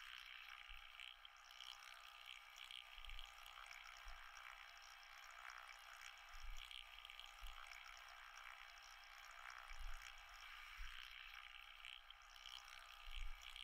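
Near silence: a faint, even trickling hiss like running water, with a few soft low thumps.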